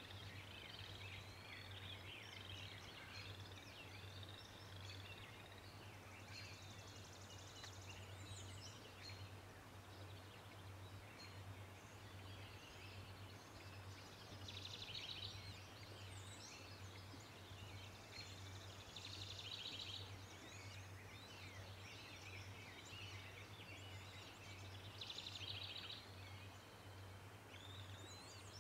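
Faint outdoor birdsong: many small birds chirping and singing over a steady low hum. Three short buzzy, rattling calls stand out, about halfway through, again about five seconds later, and near the end.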